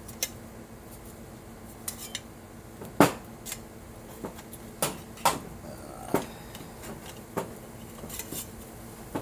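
Metal pieces clinking and knocking as they are handled, moved around and set down, in scattered separate clanks with the loudest about three seconds in, over a faint steady hum.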